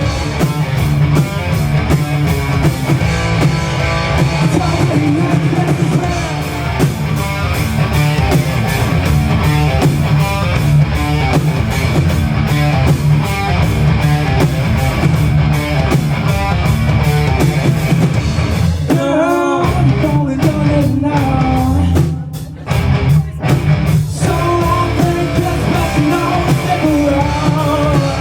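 Live rock band playing, with guitar, drums and singing. About two-thirds of the way through, the bass and drums drop away for a few seconds to a sparse break of separate hits before the full band comes back in.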